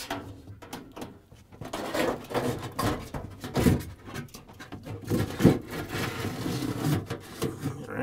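Refrigerator freezer evaporator cover panel being slid down and worked into place by hand: rubbing and scraping against the freezer liner, with several knocks, the loudest about halfway through.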